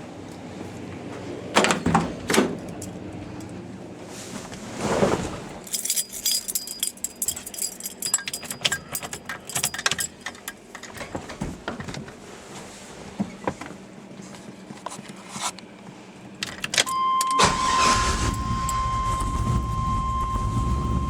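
Keys jangling and assorted clicks and knocks, then near the end the LS1 V8 of a swapped Chevy S10 starts and settles into a steady idle, with a steady high tone alongside. This is a run with freshly retightened Remflex header gaskets, and the exhaust leak is much quieter.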